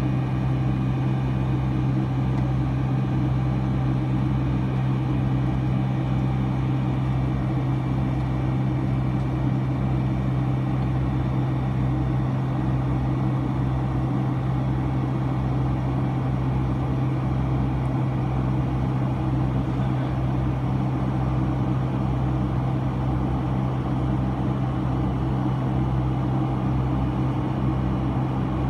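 Cabin noise of a Boeing 757-200 in flight, heard from a window seat beside the wing and engine: the jet engines and rushing air make a steady drone with a deep hum and a few faint high tones, unchanging throughout.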